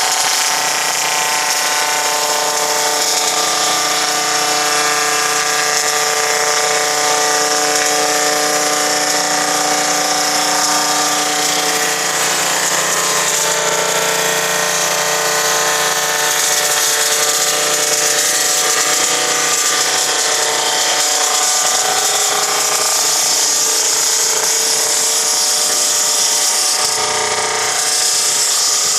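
A sawmill running: loud, steady machine noise with a high hiss and several held tones.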